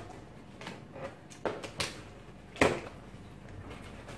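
Scissors cutting the gift-wrap paper and tape on a cardboard box, then the paper being pulled and torn by hand: a few separate sharp snips and paper crinkles, the loudest about two and a half seconds in.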